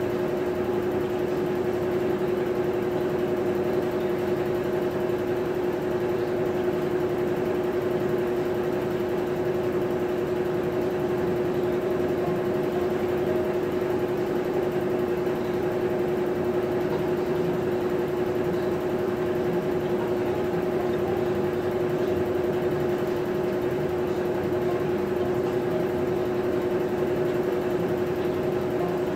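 Maytag top-load agitator washing machine running, its motor giving a steady hum at a fixed pitch.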